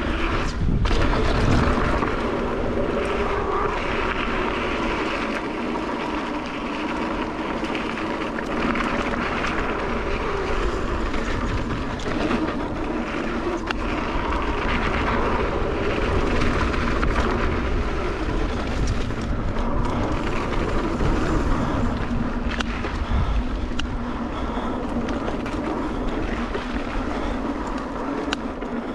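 Mountain bike (a 29er) coasting fast down rough dirt singletrack: a steady rumble of knobby tyres rolling over dirt and rock, with the frame and drivetrain rattling.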